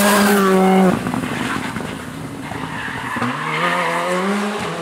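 Rally car engines at high revs. A Škoda rally car's engine is held at steady high revs and cuts off about a second in. From about three seconds in, another engine's revs rise steadily as the car accelerates.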